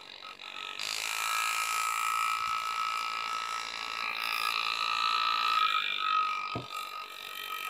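Air-driven hand-engraving handpiece hammering a graver through metal plate while cutting scrollwork: a steady high buzz that starts about a second in and dips briefly past the middle. A single low thump sounds near the end.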